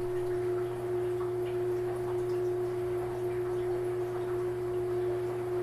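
A steady pure tone held at one pitch without wavering, over a low steady hum, with faint scattered ticks.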